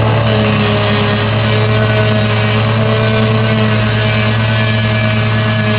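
Farm vehicle engine running steadily under load, a constant low hum with a few steady higher tones over a dense mechanical drone.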